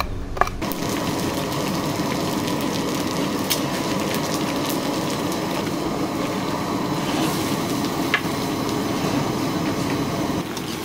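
A few knife chops on a wooden board, then a steady rushing roar from the cooking stove, with scattered small clicks and knocks of utensils.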